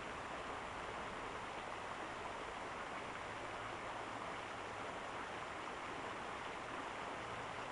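Steady rush of running water from a stormwater pipe flowing into a creek, an even hiss with no separate splashes.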